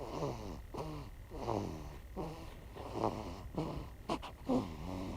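Two-week-old baby snoring in sleep: a quick run of short, squeaky pitched snores, one every half second or so.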